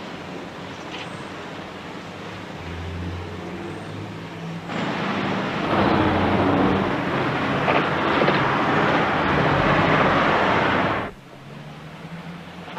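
Street traffic noise: a moderate rumble that swells into a loud steady rush of passing vehicles about five seconds in, then cuts off suddenly near the end.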